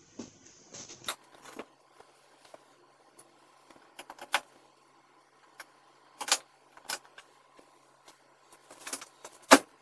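Irregular clicks, taps and rattles of plastic interior trim being handled inside a pickup cab as the headliner is pulled down and the coat hooks are taken out, with a sharper knock near the end.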